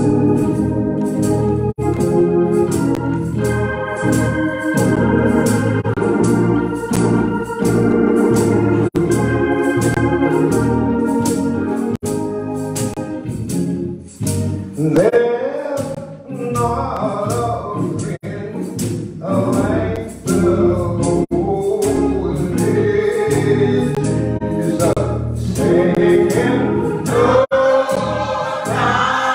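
Organ playing sustained gospel chords, joined about halfway through by a congregation singing a hymn together.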